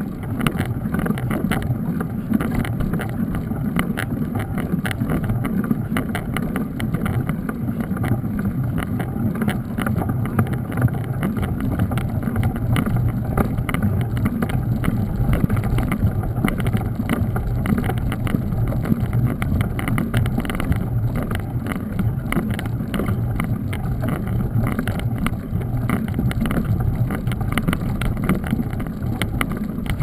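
Mountain bike rolling fast over a wet dirt and gravel road, heard from a camera mounted on the bike: steady tyre and wind rumble with constant small rattles and clicks from the bumpy surface.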